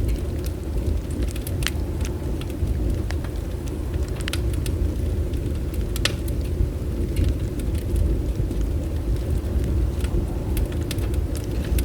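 Bonfire burning: scattered sharp crackles and pops of the wood over a steady low rumble.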